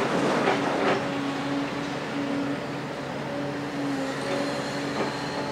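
Doosan DX255LC-5 excavator's six-cylinder diesel running steadily with a constant hum. In the first second there is a clatter of demolition rubble falling from the grab into a steel container.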